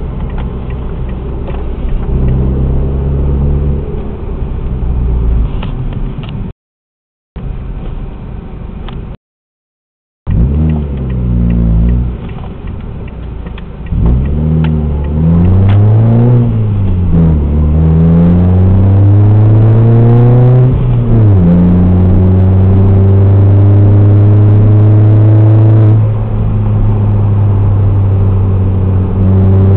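Ford Fiesta Mk7 (JA8) engine heard through a Friedrich Motorsport aftermarket exhaust. It idles at first and cuts to silence twice briefly. It is then revved up and down several times and held steady at raised revs for several seconds.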